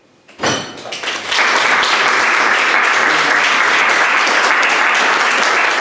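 Audience applause that starts about a second in and quickly builds to steady, dense clapping, greeting the end of a talk. Just before it, about half a second in, there is a single knock.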